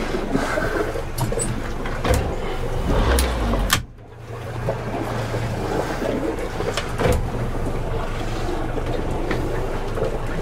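Steady wind-and-water noise around a small boat at sea, under a low hum, broken by a few sharp knocks. The sound drops away abruptly for a moment about four seconds in.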